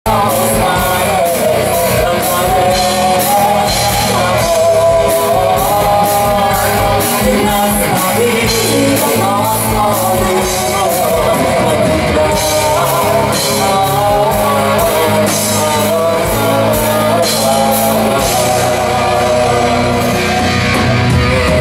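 Live rock band playing loud through a club PA: drums with steady cymbal strokes, electric guitar, bass guitar and keyboards. Heard from the audience.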